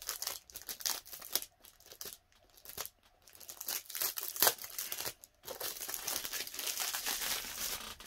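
Clear plastic wrapping crinkling and tearing as it is pulled off a new tackle box, in irregular crackles with a lull two to three seconds in.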